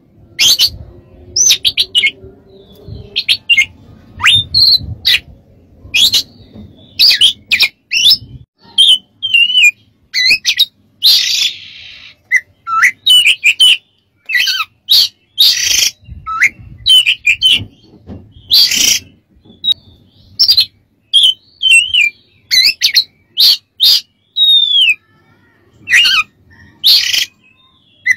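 Oriental magpie-robin singing: a rapid run of short, loud whistled and sharp notes, many sliding up or down in pitch, with a harsh rasping note about eleven seconds in.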